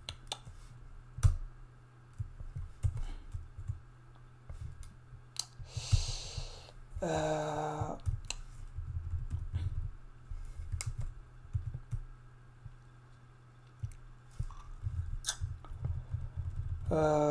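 Sparse computer keyboard key clicks while code is typed and edited, with a breathy sigh and a short hummed vocal sound about six to seven seconds in, over a low steady background hum.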